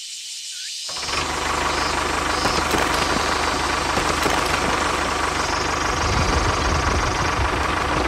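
A tractor engine running with a rapid, even chug, coming in suddenly about a second in. Before it, a few faint short chirps.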